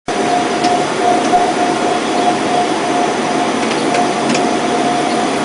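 Polystyrene picture-frame extrusion line running: steady machine noise with a constant whine and a few faint ticks.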